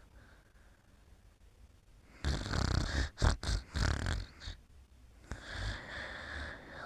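Snoring: after a quiet pause, a loud rasping snore a little over two seconds in, broken into several short snorts, then a softer breath near the end.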